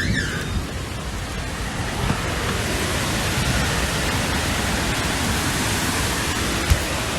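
Steady storm noise of rain and wind: an even hiss with a low, unsteady rumble, and one short thump near the end.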